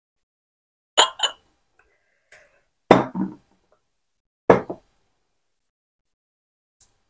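Dishes and cutlery clinking and knocking on a dining table as food is served and eaten: a few sharp clinks and knocks, mostly in quick pairs, with a couple of fainter ticks.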